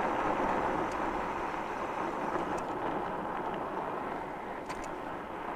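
Jansno X50 electric bike riding on pavement on street-tread tires: a steady, smooth rolling noise of the tires on the road with the electric motor under throttle, free of the 'wah' hum of knobby tires.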